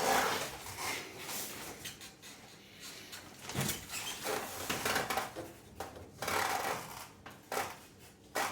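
Irregular handling noise: rustling and scraping with a few light knocks, as things are moved about by hand.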